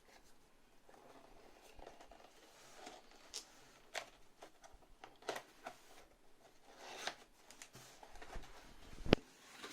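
Cardboard box and packaging being opened and handled: scattered soft rustles and taps, with one sharp knock near the end.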